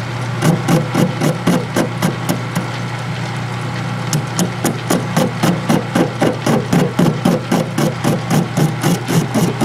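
Metal lathe turning a rough cast-iron casting with a high-speed steel tool bit: a steady motor hum under a regular knock, about four a second, as the tool bites the uneven rough surface of the casting on each turn. The knocking eases for about a second midway, then picks up again.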